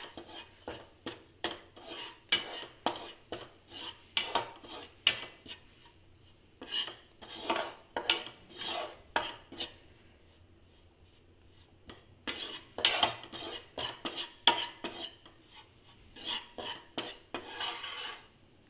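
Metal ladle scraping and stirring flour in oil against a non-stick kadhai, cooking a roux for white sauce. Quick repeated strokes, with a pause of about two seconds around the middle.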